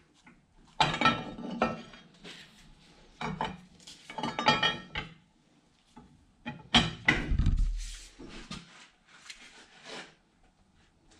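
Steel bar clanking and rattling against a cast-iron three-jaw lathe chuck as it is levered to break the chuck loose from its L00 spindle mount, with the spindle locked in back gear. The clatter comes in about four separate groups, with a heavier knock about seven seconds in.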